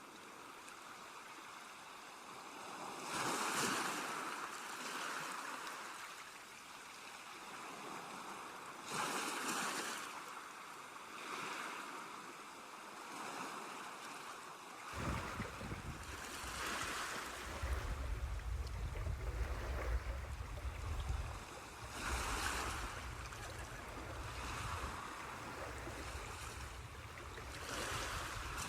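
Ocean waves washing on the shore, each swell rising and falling every few seconds. About halfway through, a steady low rumble joins underneath.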